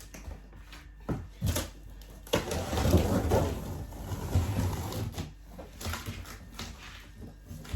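Packaging and plastic parts being handled during an unboxing: a couple of knocks about a second in, then a few seconds of crackling rustle with dull thumps, trailing off.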